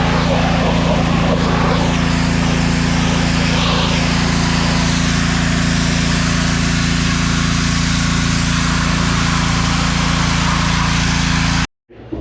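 Boat's outboard motor running steadily at one constant speed.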